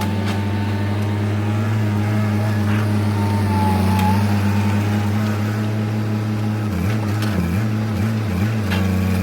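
Heavy land-clearing machine's diesel engine running steadily at high revs, its pitch dipping briefly a few times late on as it takes load, with a few faint knocks.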